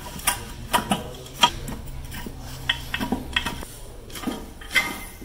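Metal strut parts and tools clinking and knocking against each other, about ten sharp, irregular metallic clicks, some of them ringing briefly.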